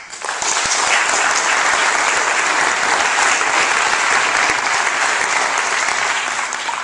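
Audience applauding: a dense crowd of clapping that starts suddenly and holds steady and loud.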